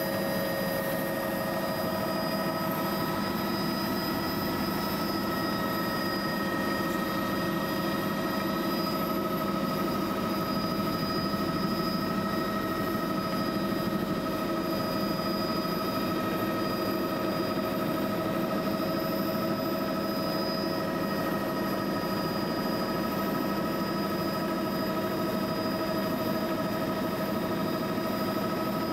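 Steady engine drone that does not change, with several held tones over a constant rushing noise.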